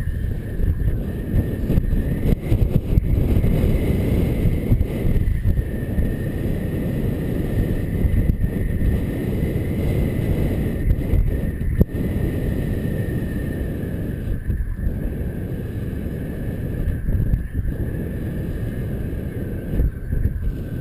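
Airflow buffeting a GoPro's microphone during paraglider flight: a loud, gusty, low rushing noise, with a faint thin high tone held steadily throughout.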